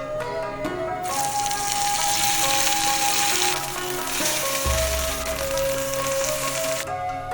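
Marinated fish sizzling as it fries in hot oil. The sizzle starts about a second in and cuts off sharply near the end, over background music.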